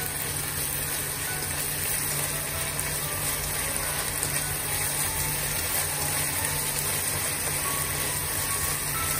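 Minced pork, green beans and carrot sizzling steadily in a hot wok as they are stirred with wooden chopsticks. Soft background music plays faintly underneath.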